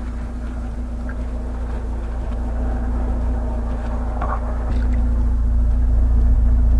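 Chevrolet Niva's engine running under load while driving through deep ruts on mud tyres, a steady low hum that grows louder about two-thirds of the way in.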